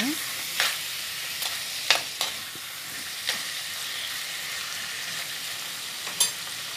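Marinated chicken pieces sizzling steadily in hot gingelly (sesame) oil in a clay pot, with a spoon stirring them and knocking against the pot a few times.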